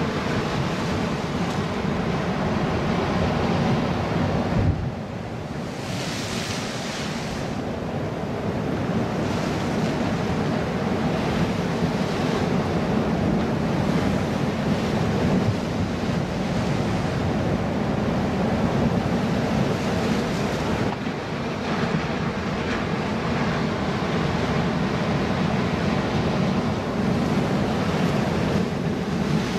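Ocean surf breaking and washing over a boulder rock wall, with wind buffeting the microphone; the rush eases briefly about five seconds in.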